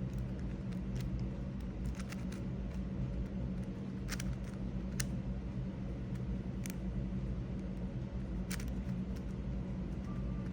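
A few sharp plastic clicks as the layers of a GAN 562 M 5x5 speedcube are turned and snap past misaligned corners during a corner-cutting test. A steady low background hum runs underneath.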